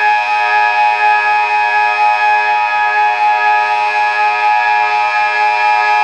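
Delta 6 civil-defence siren sounding a steady tone at one unchanging pitch, rich in overtones: the continuous-tone (Dauerton) signal.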